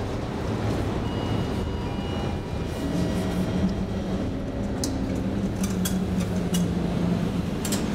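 A passenger lift arriving and its glass sliding doors opening: a steady low hum from about three seconds in, and a few sharp clicks near the end, over the steady low rumble of a metro station.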